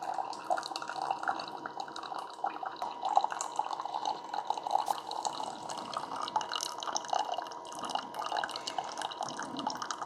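Hamilton Beach Scoop single-serve coffee maker brewing: a thin stream of hot coffee trickling and splashing into a glass mug, with a faint steady pump hum underneath.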